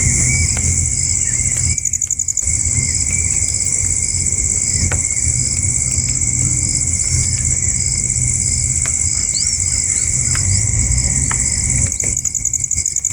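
A steady, high-pitched drone of insects calling, with a few brief bird chirps over it.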